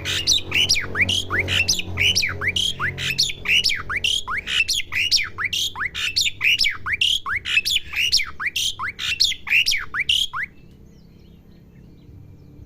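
Asian pied starling (jalak suren) calling in a fast, even run of sharp sweeping notes, about three a second, which stops abruptly about ten seconds in.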